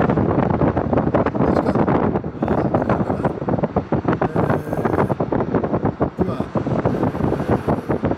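Wind buffeting the microphone in a moving car, with a loud, uneven rumble over road noise.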